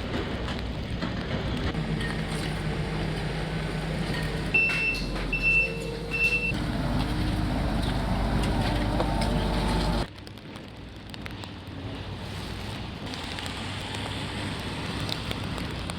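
Heavy truck or machinery engine running, with a reversing alarm beeping three times about five seconds in. About ten seconds in the engine sound cuts off, leaving quieter background noise.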